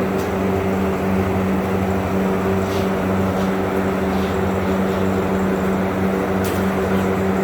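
A steady low mechanical hum from a running motor, unchanging in pitch, with a couple of faint ticks.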